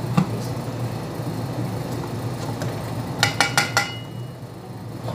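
Aluminium pot lid clinking against the pot about five times in quick succession as it is lifted off, with a brief ring, about three seconds in; a single knock just after the start. A steady low hum underneath.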